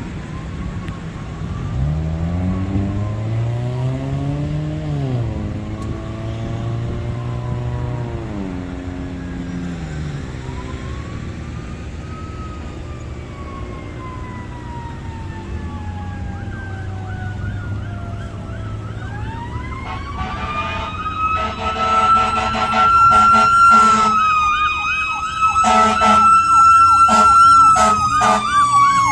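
Fire engine sirens on an emergency response: a wailing siren gliding slowly up and down, growing louder as the truck approaches, with a louder siren rising about two-thirds in and switching to a fast warbling yelp, joined by intermittent air horn blasts near the end. In the first third a lower sound rises and falls in pitch.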